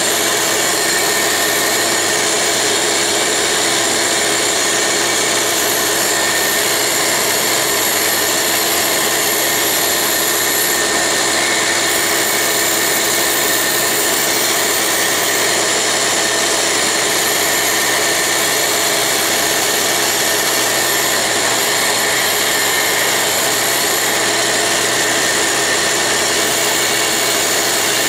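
A Dumore toolpost grinder running together with a vacuum cleaner, a loud steady mix of whine and rushing noise, while the grinding wheel is dressed on a diamond nib.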